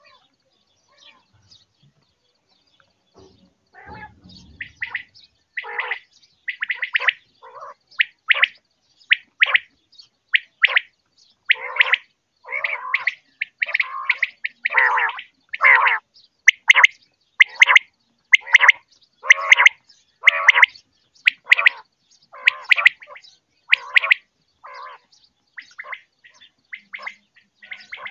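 Common quail calling over and over: a fast run of short, sharp notes, about two a second, starting a few seconds in after a short quiet stretch.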